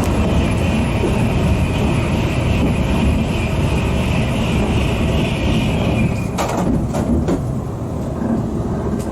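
Train running along the track: a steady rumble with a high, steady whine that fades out about six seconds in, followed by a few sharp clacks.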